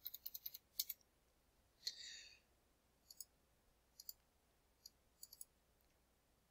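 Faint computer keyboard typing during the first second as a number is entered, then a few soft mouse clicks, some in quick pairs, spread over the rest. A short soft hiss about two seconds in.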